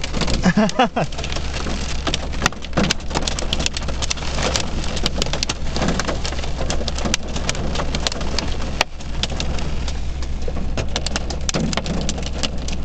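Heavy rain and hail, about 3/4 to 1 inch across, pelting a car: many sharp, irregular ticks of hailstones striking the body and glass over the steady hiss of the downpour.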